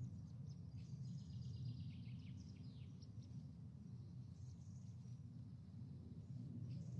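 Faint recorded birdsong, scattered high chirps and short falling twitters, over a low steady hum. It stands in for the muted live-feed sound while the people on screen go on talking.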